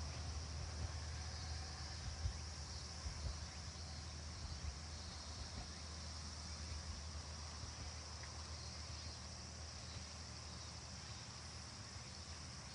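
Insects buzzing steadily in a high band, over a low rumble that slowly fades away.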